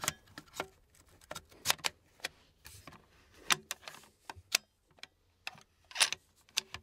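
Irregular sharp clicks and clacks from a rifle chambered in .450 Bushmaster as its box magazine is fitted and the action is handled. The loudest clacks come at the start, about a third of the way in, halfway through, and near the end.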